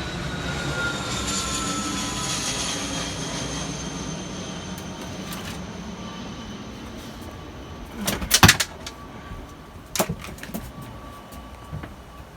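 A passing engine whine with several tones that slowly fall in pitch and fade, then a few sharp knocks about eight and ten seconds in.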